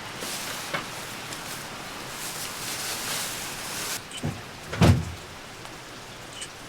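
Steady rain falling, with a louder hiss that cuts off suddenly about four seconds in, followed by a light knock and then a heavier thump.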